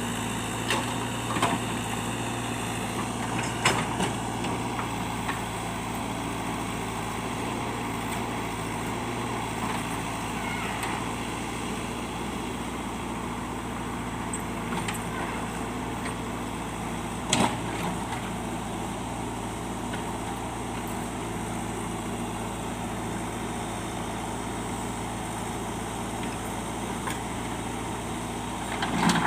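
JCB backhoe loader's diesel engine running steadily, with a few sharp knocks, the loudest about 17 seconds in and near the end.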